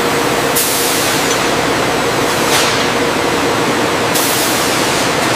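Loud, steady hiss of factory machinery noise with a faint steady hum underneath, swelling into sharper hisses three times.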